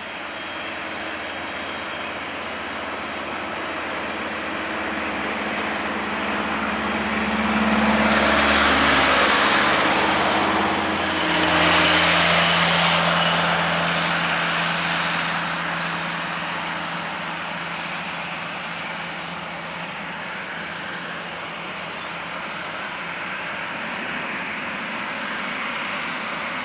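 Twin Williams FJ44 turbofans of a Cessna CitationJet CJ4 running at taxi power, a steady jet whine and rush with a low hum. The noise swells louder twice near the middle, then settles back.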